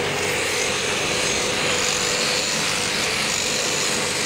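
Machine sheep shears on an overhead drive running steadily as the handpiece cuts through a sheep's fleece, a continuous mechanical buzz.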